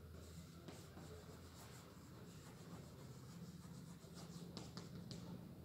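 Faint chalk writing on a blackboard: soft scratching strokes, with a few sharper taps of the chalk near the end.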